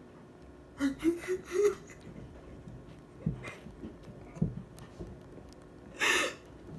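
A woman's muffled voice behind her hands: four short voiced sounds, each a little higher in pitch, about a second in, a couple of soft low breaths in the middle, then a sharp noisy breath near the end.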